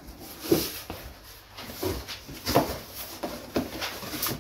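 Cardboard flaps and packing inserts being pulled and scraped out of the top of a shipping box, in a series of irregular rubs and knocks. The loudest come about half a second in and about two and a half seconds in.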